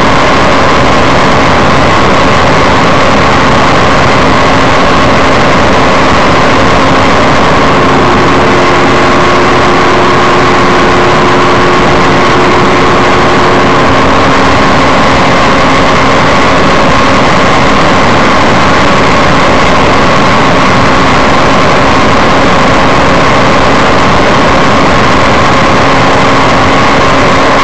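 Microlight trike's engine running at a steady speed, heard through heavy wind rush in the open cockpit. The engine's steady hum stays unchanged throughout.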